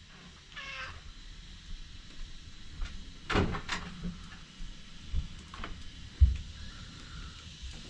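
A domestic cat meows once, faintly, about half a second in. Later come two sharp clicks around the middle and a few dull low knocks, the loudest near the end.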